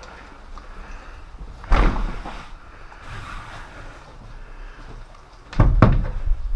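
Two heavy thumps about four seconds apart, the second a quick cluster of knocks, over a steady low background.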